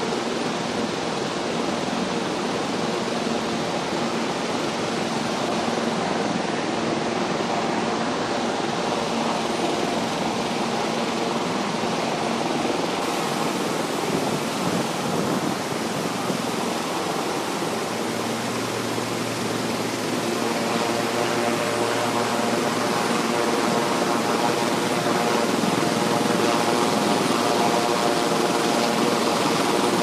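Steady rush of a waterfall, with the hovering DJI Mavic Pro quadcopter's propeller hum as a steady whine of several tones over it, a little louder in the second half.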